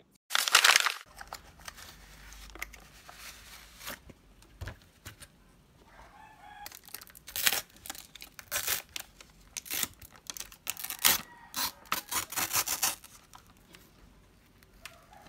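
Thin clear plastic lid and film of a takeaway tiramisu tray being peeled back and handled: a string of sharp crinkles and crackles, loud about half a second in and coming thick and fast in the second half.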